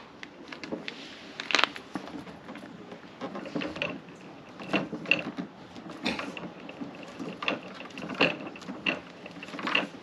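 Scattered clicks, knocks and short squeaks of hands working silicone sealant onto a fuel-tank gasket, in an irregular rhythm.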